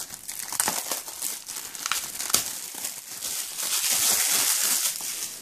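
Clear plastic shrink wrap being peeled and pulled off a Blu-ray case, a continuous crinkling and crackling of thin cellophane, loudest near the end before it stops.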